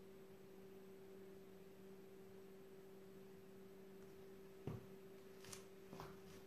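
Near silence with a steady low hum. A little under five seconds in, a white Birkenstock sandal knocks once as it is set down on a laminate floor, followed by two fainter taps.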